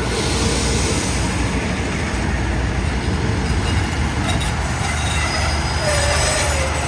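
Diesel-hauled passenger train rolling past the station platform with a steady rumble of engine and wheels, and a few thin squeals from wheels or brakes in the second half.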